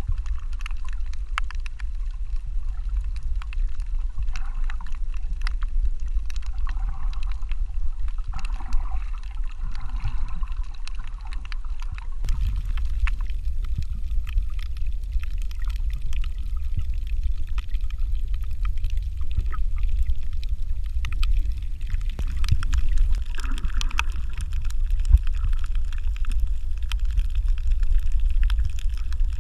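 Underwater sound through a GoPro's waterproof housing: a steady, muffled low rumble of water with many sharp scattered clicks and crackles. The sound changes abruptly about twelve seconds in, where two recordings are joined.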